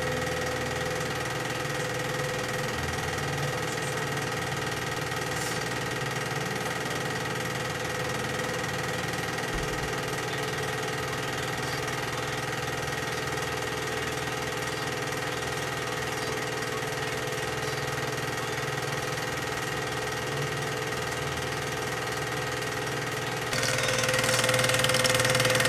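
Chinon 4000GL dual 8mm cine projector running: a steady mechanical whirr with a constant hum. About 23.5 s in it suddenly becomes louder and closer, as the machine itself is approached.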